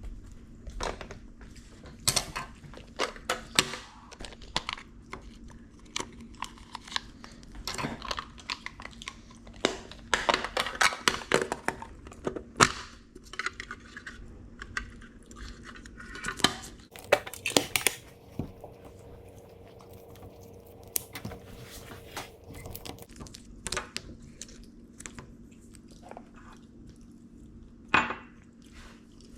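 Hands working with paper and plastic stationery: irregular clicks, taps and crinkling rustles, busiest in two stretches near the middle.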